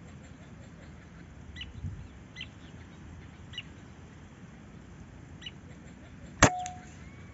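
A single sharp rifle shot about six and a half seconds in, with a brief ringing after it and a smaller click just behind. Before it, a few short, high bird calls, spaced a second or so apart.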